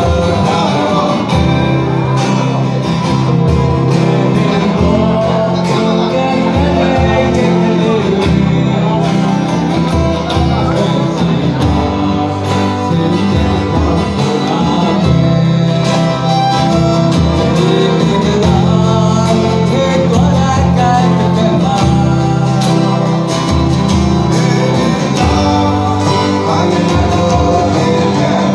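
Live acoustic folk band playing: several acoustic guitars strummed, a violin bowed along, and a man singing into a microphone.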